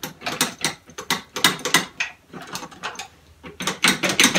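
Irregular metallic clicking and ratcheting from a cordless drill and its Allen (hex) adapter being worked on the air engine's cylinder bolts, the adapter sticking in the bolt heads.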